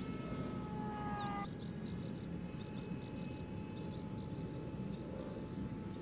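RC model plane's motor whining overhead, a thin steady tone that sags slightly in pitch and fades about a second and a half in, with many small birds chirping in quick falling calls and a steady rumble of wind on the microphone.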